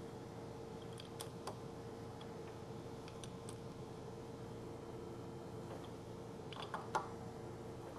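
Scattered light clicks and taps of metal tooling being handled at the lathe, a few at a time, the loudest near the end. Under them runs a steady faint hum.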